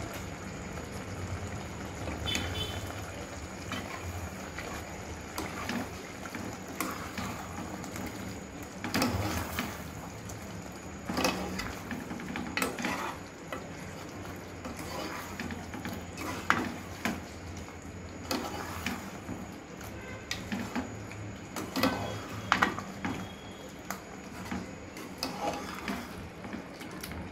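A ladle stirring thick curry in an aluminium pot, scraping and knocking against the metal sides in irregular clinks, over a faint steady background.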